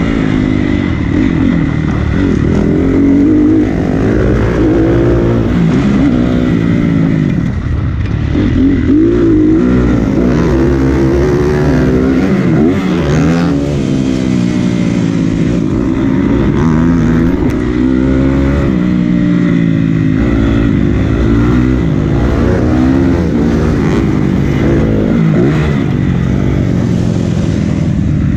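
Honda CRF250 dirt bike's single-cylinder four-stroke engine revving up and falling back over and over as it is ridden hard around a dirt motocross track, the pitch rising on the straights and dropping into the turns.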